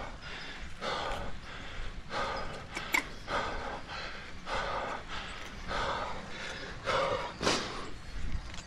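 A cyclist breathing hard under exertion, in an even rhythm of about one breath every half second.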